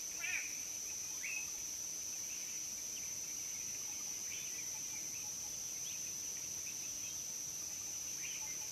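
Outdoor bush ambience: a steady high-pitched insect drone, with short bird chirps scattered through it.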